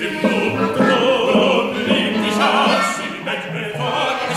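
Two male operatic voices singing together with instrumental accompaniment.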